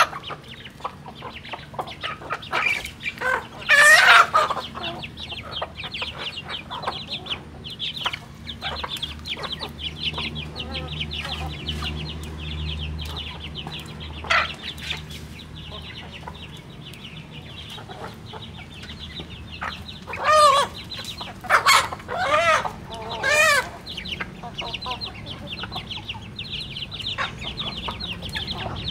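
Chickens clucking continuously with soft, rapid calls while feeding, with a louder call about four seconds in and three loud squawking calls in quick succession around twenty seconds in.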